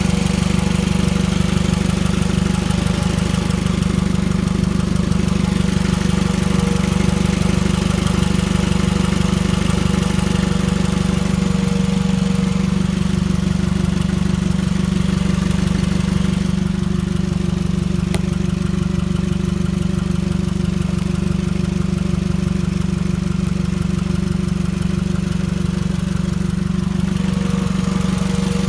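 Toyota 2AZ-FE 2.4-litre inline-four engine from an Estima ACR30 idling steadily, with an even rhythmic hum.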